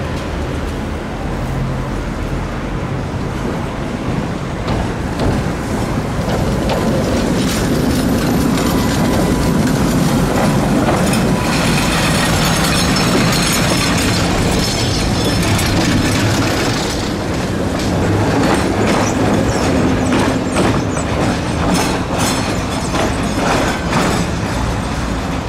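KTM-5 (71-605) tram passing close and pulling away on worn street track, its steel wheels rumbling and clattering over the rails. The noise grows louder and hissier about halfway through as the car goes by, and sharp clicks come near the end.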